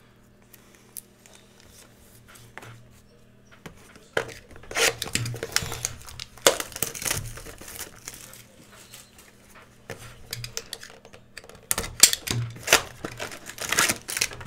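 Crinkling and tearing of a trading card box's cellophane wrap and its foil pack wrapper as they are handled, in several bouts after a quiet start, over a faint steady low hum.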